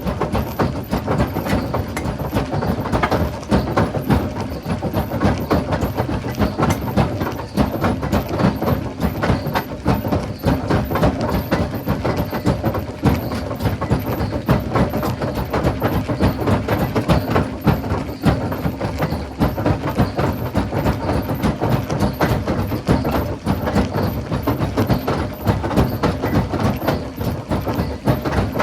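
Rock crusher working, with a continuous dense clatter of stones knocking against each other and the machine.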